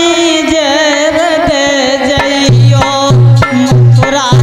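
Male voice singing a Hindi devotional bhajan with drum accompaniment, the melody wavering and held on long notes. About halfway in, deep drum strokes come in on a steady beat, a little under two a second.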